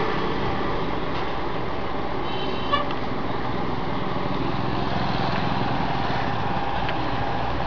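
Steady background noise with a short high toot a little over two seconds in, followed by a brief click.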